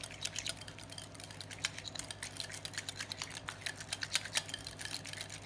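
Wire whisk beating cream cheese and Greek yogurt in a glass bowl: quick, irregular clicks and taps of the metal wires against the glass. A steady low hum sits underneath.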